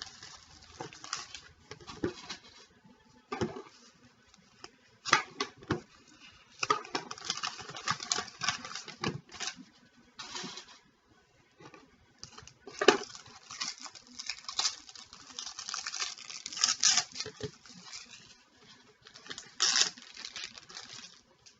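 Trading-card packs being torn open and the cards handled: irregular crinkling and rustling of wrappers with small clicks, in uneven bursts.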